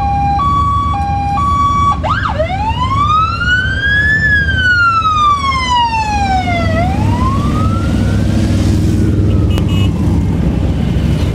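Emergency vehicle siren alternating between two notes, then switching to a slow wail that rises, falls and rises again before fading out. A steady low rumble of vehicle engines runs underneath.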